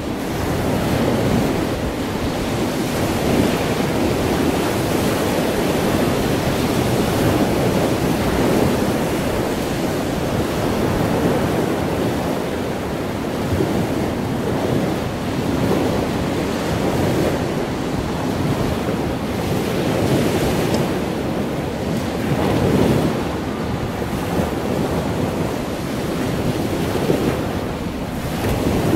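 Heavy storm surf breaking and churning, swelling and easing every few seconds, with wind buffeting the microphone.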